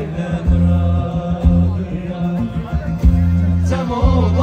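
Music with a heavy bass line and a singing voice that comes in near the end.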